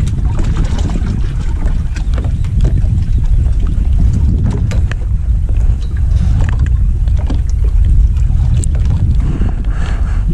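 Wind buffeting the microphone on a fishing boat at sea, a steady low rumble, with scattered sharp clicks and knocks.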